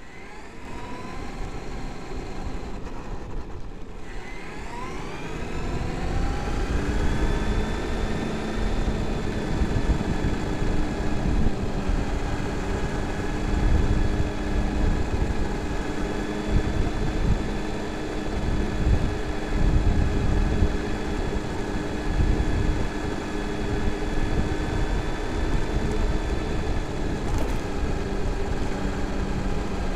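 Traxxas X-Maxx RC monster truck's brushless electric motor and drivetrain whining as it drives, rising in pitch over the first several seconds as the truck speeds up, then holding a steady pitch at speed. A loud, uneven low rumble runs underneath.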